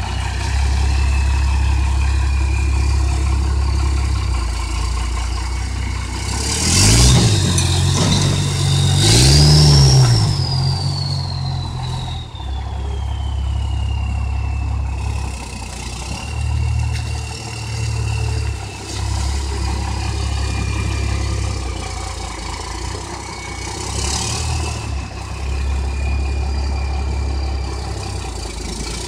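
5.9 Cummins inline-six turbo diesel in a Ford F-250 running, with short revs about seven and ten seconds in and again near twenty-four seconds. A high whistle climbs with the second rev and then slowly falls away.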